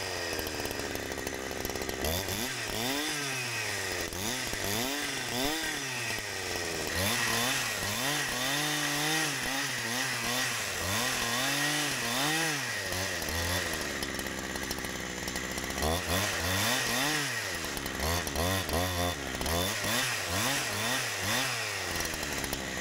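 Gas chainsaw ripping lengthwise through a spruce log, freehand milling a 2x12 board. The engine's pitch rises and falls over and over, about once a second or so, as the chain works along the cut.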